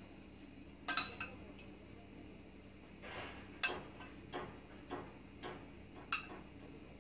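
A metal spoon clinking and scraping against a stainless steel saucepan as warm sauce is spooned and poured out of it. Sharp clinks come every second or so, the loudest about a second in, at about three and a half seconds, and at about six seconds.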